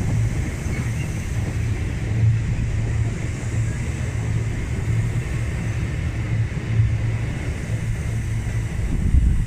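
Freight train of container flat wagons rolling past, its wheels making a steady low rumble on the rails.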